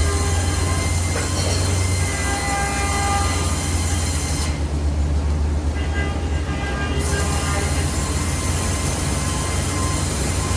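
Woodworking bandsaw running steadily, with a strong low hum and faint thin whining tones above it.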